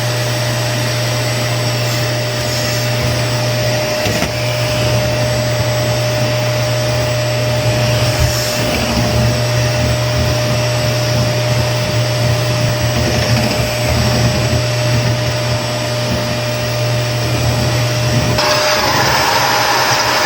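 Vacuum cleaner running steadily, its motor giving a constant hum and whine over an airflow rush. Near the end the airflow turns noticeably hissier and brighter.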